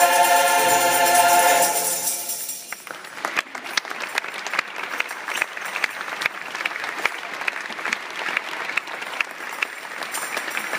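Choir singing a held final chord that ends about two and a half seconds in, followed by audience applause.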